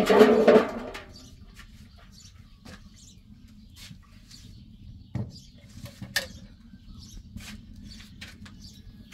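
Small birds chirping in short, scattered notes over a low steady hum, with a loud noisy burst lasting about a second at the very start.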